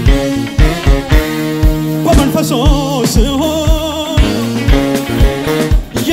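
Live worship band playing: electric guitar and bass over a steady kick drum of about two beats a second. From about two seconds in, a man's voice sings a wavering line over it.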